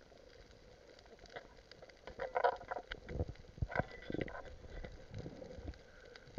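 Underwater clicks and knocks picked up through a dive camera's housing while a speared fish is handled on the spear shaft, over a steady faint crackle. A cluster of louder knocks comes about two seconds in, and more about three to four seconds in.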